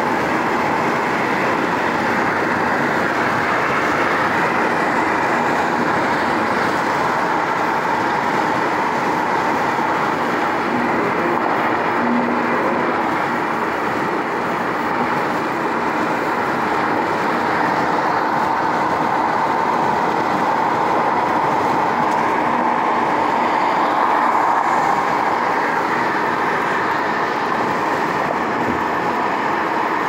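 Steady road and tyre noise inside a car's cabin as it drives along a freeway.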